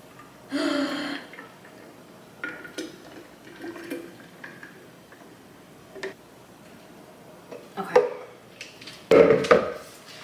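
Creamy coquito poured from a plastic blender jar into a narrow bottle, a thick liquid stream trickling in. Near the end come sharp knocks and clinks as the jar and bottle are handled, with a single spoken "okay".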